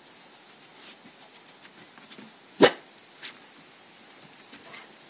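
A dog barks once, a single sharp bark about halfway through, with a few faint clicks and taps around it.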